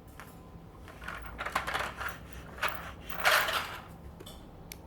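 Handling noise: a stretch of rustling and clattering clicks, loudest about three seconds in, with a single click near the end.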